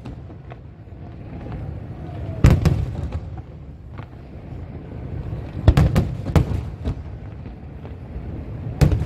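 Aerial firework shells bursting in loud booms: one a couple of seconds in, three in quick succession about two-thirds of the way through, and another near the end. A continuous low rumble and crackle from the display fills the gaps.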